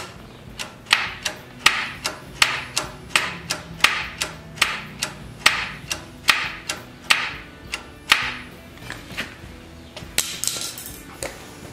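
A steady series of sharp metallic taps, about one a second, each with a brief ring, from work on an aftermarket carburetor and its choke on a Tecumseh engine. A quicker rattle of small clicks comes near the end.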